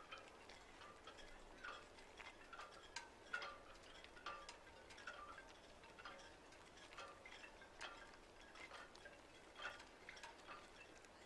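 Near silence with faint, irregular light ticks and brief high tinkling tones, two or three a second.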